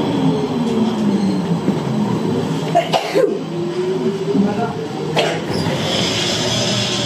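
Driverless Cityval metro train braking into a station: its electric drive whine falls in pitch as it slows to a stop, followed by a few clicks and knocks and a higher tone near the end.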